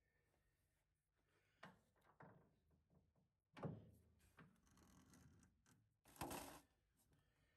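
Near silence broken by a few faint knocks and short scrapes from a lathe chuck being turned by hand and its jaws adjusted with a chuck key, the lathe stopped.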